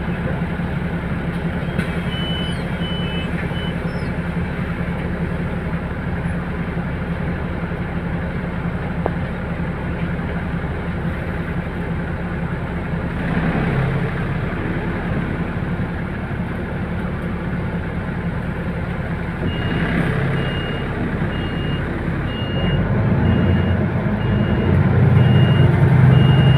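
City bus heard from inside the cabin: a steady engine and cabin drone, with a short run of high electronic beeps a couple of seconds in. About two-thirds of the way through, a high beep starts repeating roughly every 0.7 s, and the engine grows louder near the end.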